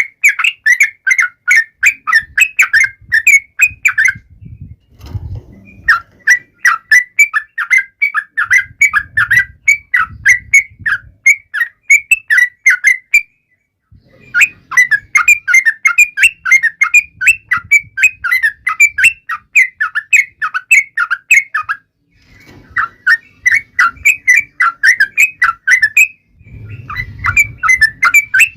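Yellow-vented bulbul (trucukan) calling in long runs of rapid, sharp chirps, several a second, broken by a few short pauses. A faint low rumble comes and goes underneath.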